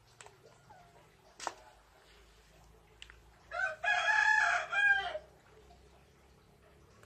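A rooster crowing once: a single segmented cock-a-doodle-doo lasting about a second and a half, starting about halfway through.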